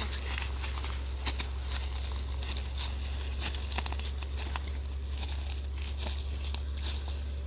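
A steady low hum with scattered light clicks and rustling, as of objects being handled, and two sharper clicks about a second and four seconds in.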